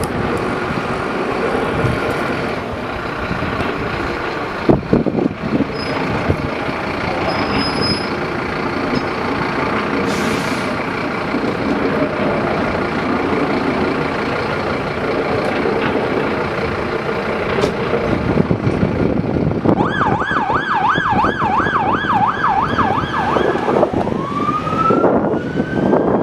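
Fire trucks' engines running as they move off, with a short hiss about 10 seconds in. About 20 seconds in a siren starts in a fast yelp, about four rises and falls a second, then changes to a slow rising wail near the end.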